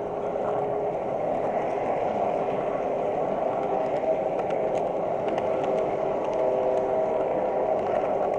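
Model train running along its track, heard from a camera riding on the train: a steady running hum with faint tones from the motor and gears, and light ticks from the wheels on the track.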